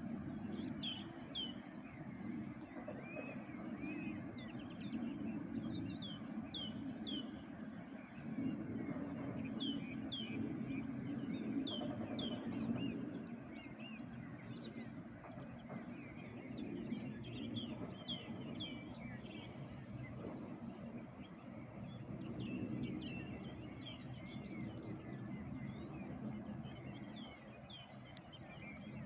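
A songbird singing short phrases of three or four high, downslurred notes, repeated every few seconds, over a steady low rumble of outdoor background noise.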